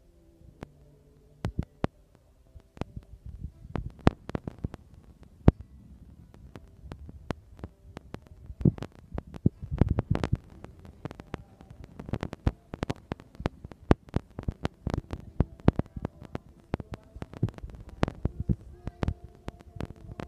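Irregular knocks and thumps, mostly low and dull with some sharper clicks, typical of handling noise rubbing and bumping a handheld camera's microphone. Faint steady tones sit underneath.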